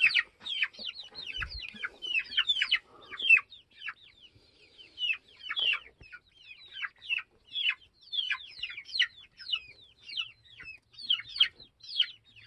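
A flock of chickens peeping with many short, high-pitched, falling chirps, several a second and overlapping.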